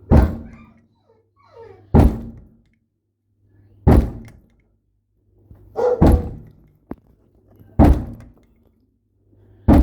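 Six heavy thuds at an even pace, about one every two seconds, each ringing briefly.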